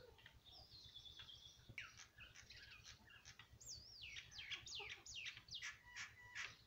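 Faint, busy chirping of small birds: many quick, high notes, each sweeping downward, coming thicker and faster from about two seconds in.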